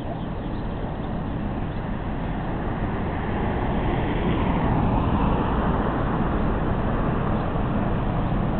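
Vehicle engine rumble with road noise, swelling about three seconds in and then holding steady.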